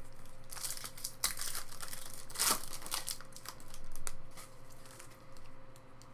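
Foil wrapper of a Topps Chrome baseball card pack crinkling and tearing as it is opened, in irregular crackly bursts, followed by the cards being handled and shuffled.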